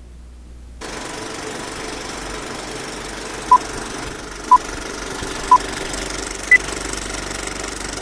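A steady mechanical rattle sets in suddenly, and over it come four short beeps a second apart, three on one pitch and the last one higher: a countdown signal.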